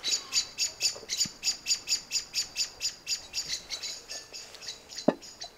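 A small animal's high chirping call, repeated rapidly and evenly at about six chirps a second and slowly fading. A single sharp knock sounds about five seconds in.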